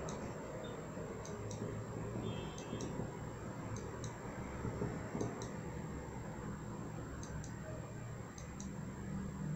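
Computer mouse clicking: light clicks in pairs, a pair every second or two, over a steady low room hum and a faint high-pitched electronic whine.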